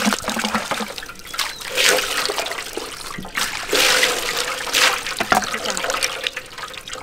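Water splashing and pouring in several separate bursts.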